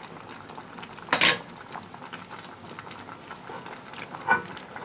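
Two clanks of kitchenware, one loud about a second in and a shorter ringing clink near the end, over a faint steady hiss.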